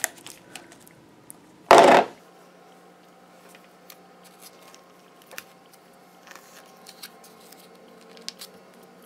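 The plastic lid of a small tub of bouncy clay coming off with one loud pop nearly two seconds in, followed by faint clicks and rustles of the tub being handled.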